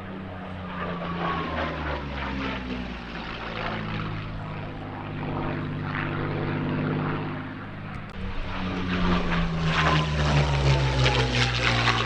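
Rolls-Royce Merlin-engined piston warbird flying past, its engine note falling in pitch as it goes by. About eight seconds in, a louder pass begins and falls in pitch again.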